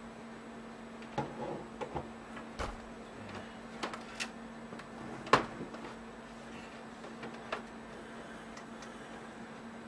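Handling of a desktop computer power supply unit: a scattered series of light clicks and knocks, the loudest about five seconds in, over a steady low hum.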